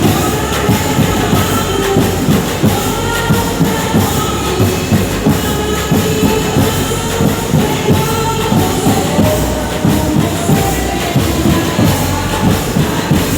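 Music with a fast, steady beat under a melody.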